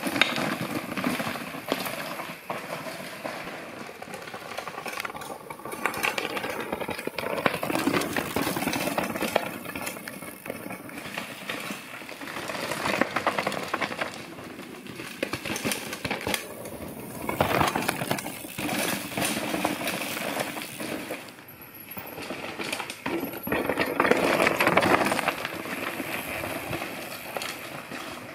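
Mountain bikes riding down a rocky trail: tyres crunching and rattling over loose stones and gravel, with clattering from the bikes, swelling and fading several times.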